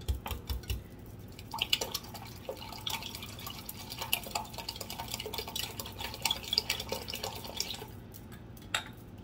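A wire whisk beating raw eggs in a glass measuring cup: rapid clicking of the wires against the glass with a wet sloshing, easing off near the end.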